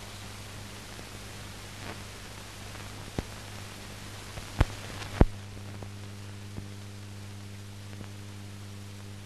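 Steady hiss and low mains hum of a soundless film transfer, with a few sharp clicks, the two loudest about four and a half and five seconds in; after the second the hiss turns duller.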